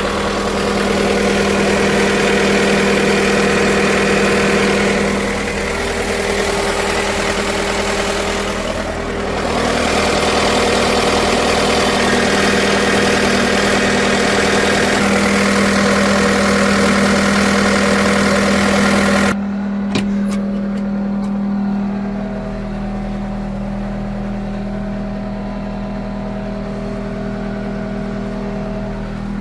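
John Deere 325G compact track loader's diesel engine running steadily at a high, even speed, with brief dips in level about 5 and 9 seconds in. About two-thirds of the way through, the sound turns suddenly duller and a little quieter.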